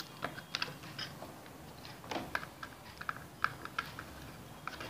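Scattered light clicks and scrapes of fingers and a small screwdriver working a brass terminal screw with its wire on a plastic switch plate.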